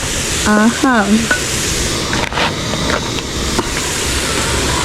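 Sukuma wiki (collard greens) sizzling as they fry in a pan, with a few light clicks from stirring. About half a second in comes a brief two-note vocal sound.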